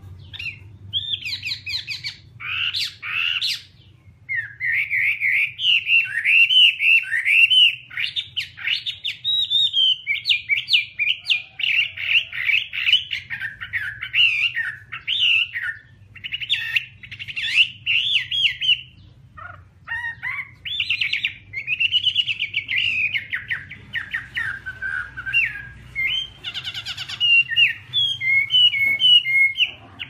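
Chinese hwamei (Garrulax canorus) singing a long, varied song of rapid warbled and whistled phrases, broken by a few short pauses.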